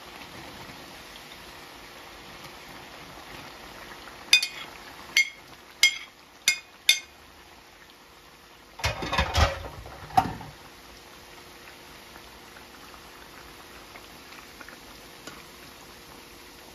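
Plantain chips deep-frying in oil with a steady sizzle. About four seconds in, a metal utensil taps the pot five times with a ringing click. Around nine seconds in comes a louder, rough clatter of stirring or lifting the chips.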